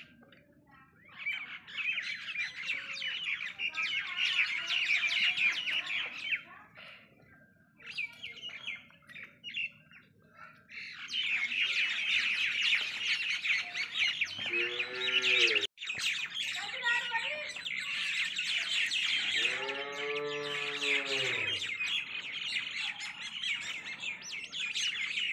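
Many small birds chirping busily, thinning out for a few seconds before the middle and then chirping on without a break. Twice, about 15 and 20 seconds in, cattle low with a long, deep moo.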